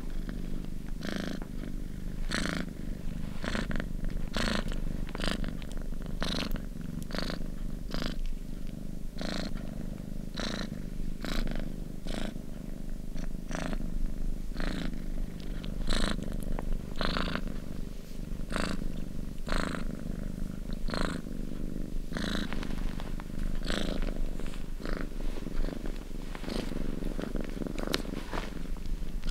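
Cheetah purring: a continuous low purr with a short breathy rasp recurring a little under twice a second, on each breath in and out.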